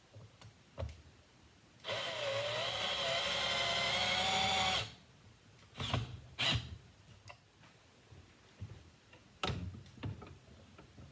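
A power drill runs for about three seconds, its motor pitch wavering at first and then holding steady. Before and after it come a few sharp knocks and clicks of tools and parts being handled on the bench.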